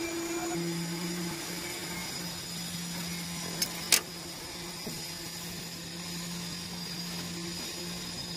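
Steady low machine hum at a fixed pitch, with two sharp clicks close together about four seconds in.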